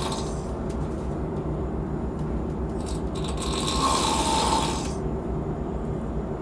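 A person snoring: one long snore about three seconds in, lasting nearly two seconds, over a steady low hum.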